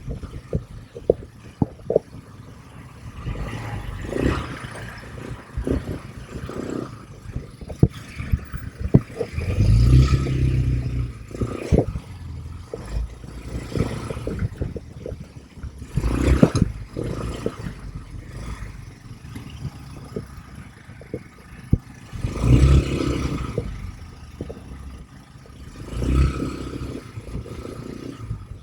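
ATV engine revving up in several surges over an uneven run, with frequent irregular knocks and rattles of the machine jolting over rough ground.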